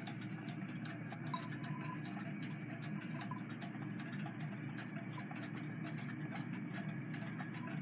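Faint, irregular small metallic ticks and clicks as a screwdriver snugs down the threaded stud of a Singer 66 upper tension assembly, over a steady low hum.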